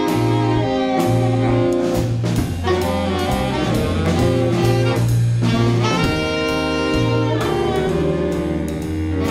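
A saxophone section of alto, tenor and baritone saxophones playing a tune together over electric bass and a drum kit, with regular cymbal and drum strikes keeping the beat.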